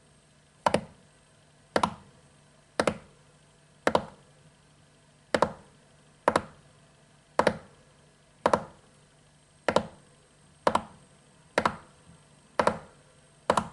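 Gerbil thumping its hind feet on the floor of its plastic cage: a sharp knock about once a second, about thirteen in all. Foot-thumping is a gerbil's alarm signal, most often a sign of stress, warning the others of danger.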